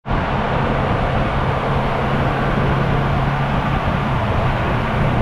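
Motorcycle cruising at a steady speed through a road tunnel on a wet road: a steady, even engine hum under loud rushing wind and road noise.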